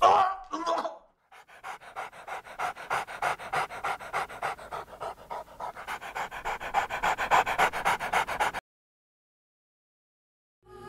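A dog panting in quick, even breaths for several seconds, then cut off suddenly.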